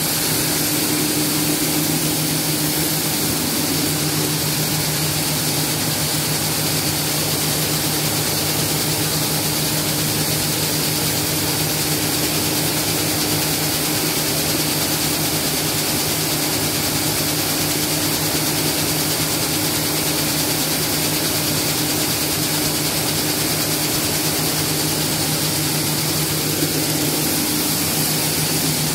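Seed-processing machinery running steadily, a specific gravity separator with grain moving over its deck alongside a bucket elevator: a constant low hum over an even hiss.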